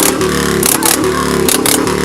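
Harley-Davidson motorcycle engine revved over and over in a rhythm, its pitch rising and dropping with each blip, with sharp cracks from the exhaust recurring in pairs.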